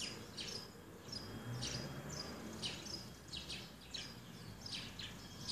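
Small birds chirping: quick, high notes that sweep downward, mixed with short steady peeps, several a second, over a steady background hiss.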